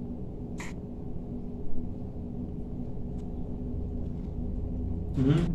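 Steady low room hum while beer is sipped: a short breathy hiss about half a second in, a dull low thump a little under two seconds in, and near the end a brief voiced 'ahh' from a drinker after a swallow.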